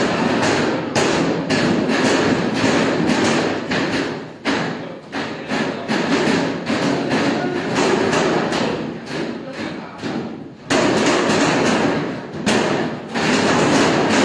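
Hand-pulled noodle dough being swung, stretched and slapped against a stainless-steel worktable: many irregular thuds over steady background noise.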